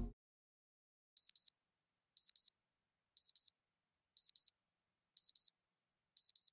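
Digital alarm clock beeping: short high double beeps about once a second, six pairs starting about a second in.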